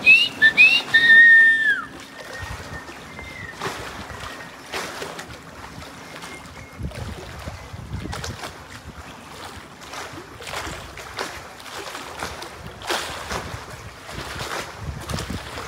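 Wind buffeting the microphone over the wash of water. Near the start there are several loud, high whistling chirps, the last one longer and falling in pitch at its end.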